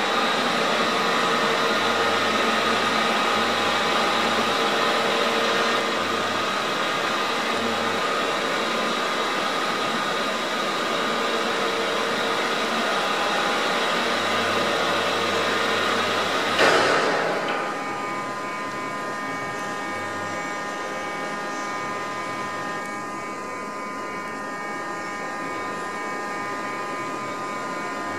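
Anayak VH 1800 CNC bed milling machine running under power: a steady mechanical hum with several fixed whining tones. A short hiss bursts out about seventeen seconds in, after which the machine runs a little quieter.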